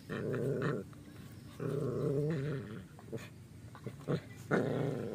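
A small dog growling in three drawn-out bouts, low and rasping, while it noses at a bamboo frog trap, with a few short clicks between the growls.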